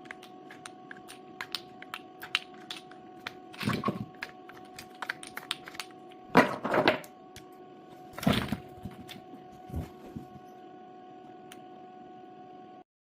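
Clicks, taps and clatter of small parts being handled during work on a cordless tool battery pack, with three louder bursts of clatter, over a steady electrical hum. The sound cuts off abruptly near the end.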